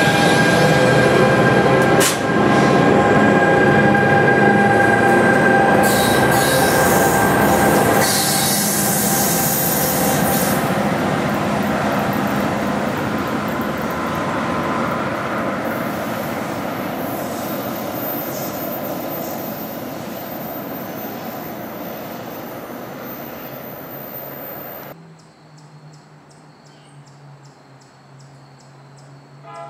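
Passenger train moving past close by and pulling away, with steady metallic wheel squeal over the rumble of the wheels and a sharp clank about two seconds in. The sound fades as the train recedes, then cuts off abruptly near the end, leaving a low steady hum with faint regular ticking.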